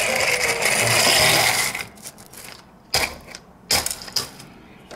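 Loose gravel crunching and rattling as a toy car is pushed through it for about two seconds, followed by three separate sharp clicks of stones and toy.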